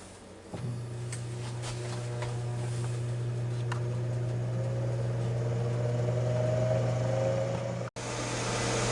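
Ninja Foodi Deluxe air fryer running on air crisp: its fan starts about half a second in and runs with a steady hum over an even rush of air, with a few light clicks. A brief dropout comes near the end.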